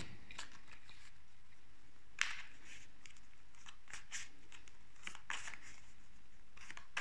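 A deck of cards being shuffled by hand, the cards sliding and slapping against each other in a string of short rustling clicks. The busiest stretch comes about two seconds in.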